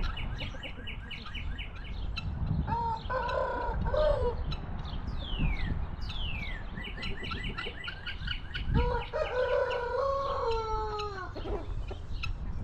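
A rooster crowing twice, a long pitched crow about three seconds in and another about nine seconds in that falls away at its end. Between them, other farm birds give rapid high chirps and short downward-sweeping calls, over a low rumble.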